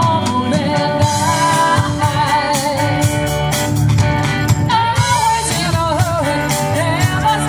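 Live band playing a song through a PA: a singer with a wavering voice over electric guitar, bass and a steady drum beat.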